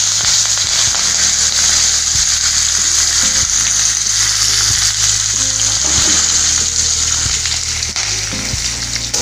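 Curry leaves, dried red chillies and cumin seeds sizzling in hot oil in a kadai, a steady frying hiss: the tempering (tadka) for a curry.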